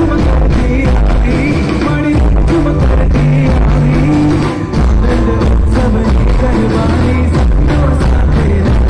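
Live garba music played loudly by a stage band through a PA: drums and percussion keeping a steady beat over heavy bass, with guitars and keyboard, and a male singer's voice.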